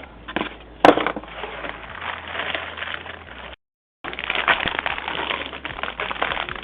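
Motherboard packaging being handled: cardboard and plastic rustling and crinkling, with one sharp snap a little under a second in. The audio drops out completely for about half a second midway.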